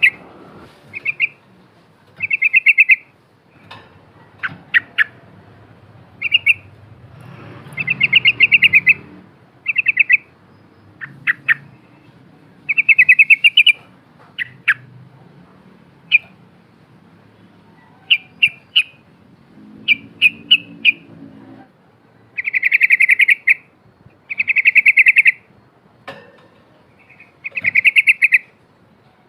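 Yellow-vented bulbul (trucukan) singing: loud, bubbly, rapid-chattering phrases about a second long, repeated a dozen or so times with short pauses between.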